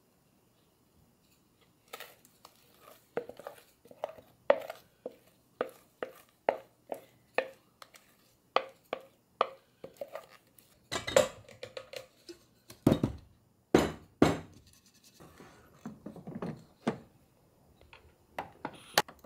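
A spatula scraping and tapping against a mixing bowl, about twice a second, as thick castella batter is emptied into a rice cooker's inner pot, followed by a few heavier knocks of the pot about halfway through and a few clicks near the end as the cooker is handled.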